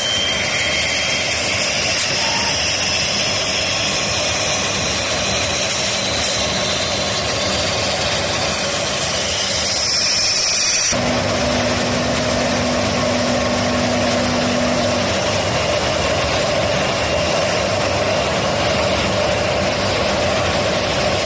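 Steady running noise of a CNC glass-drilling line for gas-stove glass panels, with conveyor belts and drilling heads working. The sound changes abruptly about halfway through, and a low steady hum joins for a few seconds after.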